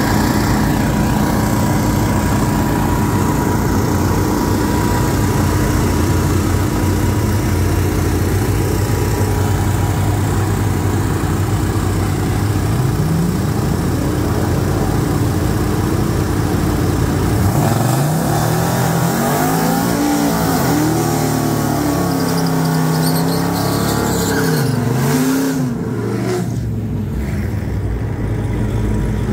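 Ram pickup's naturally aspirated V8 at the drag strip, at first running steadily with other engines around it. Past the middle it revs up and down several times in a row, typical of a burnout through the water box, then eases off.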